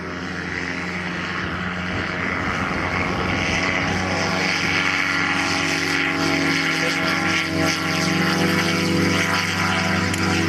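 Radio-control model aircraft's motor and propeller running steadily, getting gradually louder.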